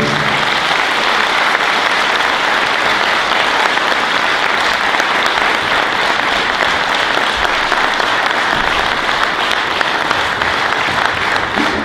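An audience applauding, a dense, steady clapping that eases slightly near the end.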